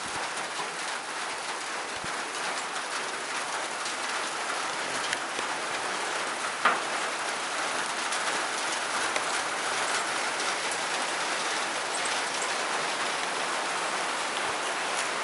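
Steady rain falling on a tin roof, a dense patter of drops with scattered individual ticks and one sharper tap about seven seconds in.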